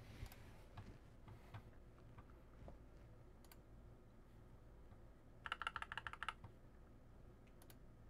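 Typing on an HK Gaming GK61 60% keyboard with Gateron optical yellow switches: a few faint, scattered keystrokes, then a quick flurry of keystrokes a little past halfway, and a couple more near the end.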